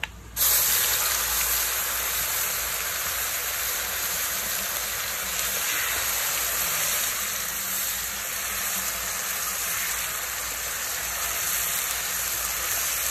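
Wet ground masala paste dropped into hot oil in a kadhai, bursting into a loud, steady sizzle about half a second in as it fries and is stirred with a spatula.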